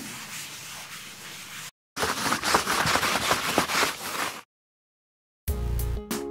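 A chalkboard eraser rubs across a blackboard for just under two seconds. Then chalk scratches across the board in quick strokes for about two and a half seconds. After a second of silence, music starts near the end.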